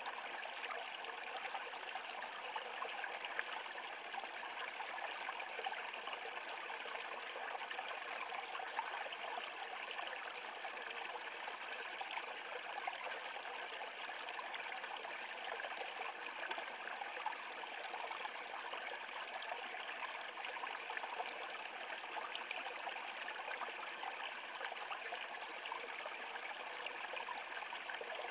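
Small brook flowing over a low rocky step into a pool: a steady, unbroken babble of splashing water.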